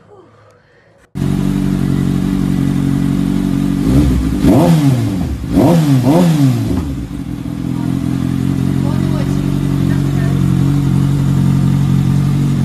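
Kawasaki Ninja ZX-10R's inline-four engine idling, then revved in several quick throttle blips, each rising and falling, before settling back to a steady idle.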